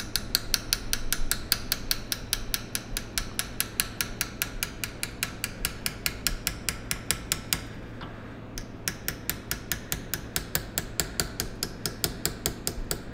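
Small hammer tapping rapidly and evenly on a hand-made, polish-faced hammer-setting tool, driving the bezel metal over a stone: a steady run of light, sharp metallic taps, several a second, with a brief pause about eight seconds in.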